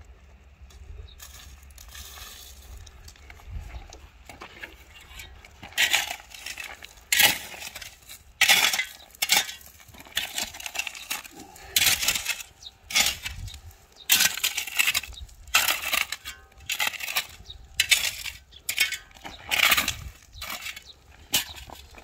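Steel shovel scraping into dry, stony soil and tipping it into a planting hole around a sapling, in repeated gritty strokes about once a second, starting about six seconds in.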